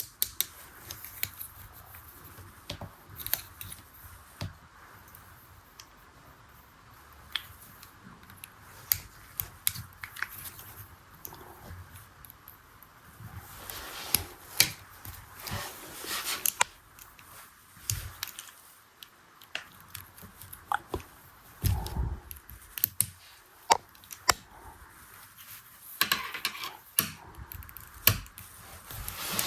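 Scattered small clicks, taps and knocks of a miniature toy washing machine being handled, busier in stretches, with one duller knock about two-thirds of the way through.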